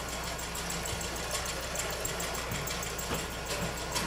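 Steady low hum and hiss of an old home-video camcorder recording, with a few faint clicks.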